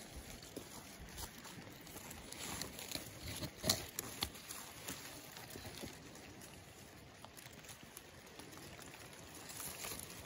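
Raspberry leaves and canes rustling and crackling close to the microphone as a hand picks berries from the bush, with scattered small clicks and one louder snap just under four seconds in.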